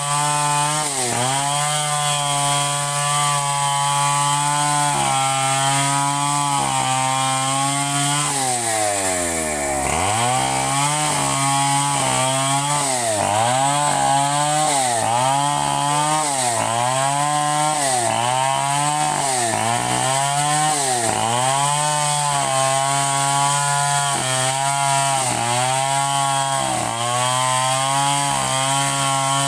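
Two-stroke chainsaw engine running at high speed, holding steady at first. Around nine seconds in it drops low, then the throttle is repeatedly eased and opened again, the pitch dipping and climbing back about once a second.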